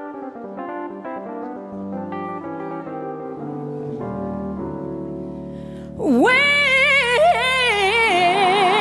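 Solo piano accompaniment playing slow held chords. About six seconds in, a woman's voice comes in loudly over it, singing with a wide vibrato.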